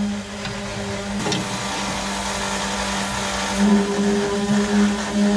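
A steady mechanical hum at one pitch, wavering a little in the second half. About a second in there is a brief metallic clatter as locking pliers are clamped onto the steel keel plate.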